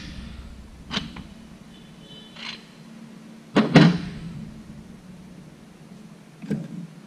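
Steel tools and transmission parts clanking as a bearing puller is lifted off a powershift gear and clutch-pack assembly: a knock about a second in, a short metallic ring, the loudest double clank a little past halfway and another knock near the end. A steady low hum runs underneath.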